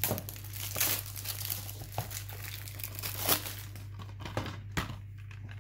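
Cellophane shrink-wrap being torn and peeled off a DVD case, crinkling irregularly with several sharp crackles.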